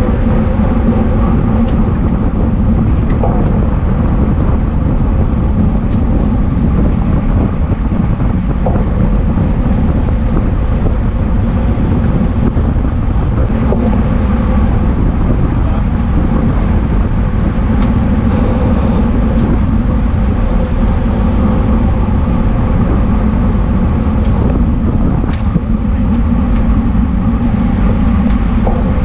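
Steady, loud rush of wind over a bicycle-mounted camera's microphone, mixed with the rumble of road-bike tyres on asphalt while riding at race speed in a bunch.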